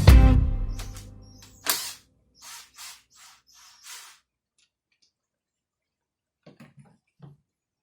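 Background music dies away, then a sharp click is followed by about five short hissing bursts. A few faint taps come near the end.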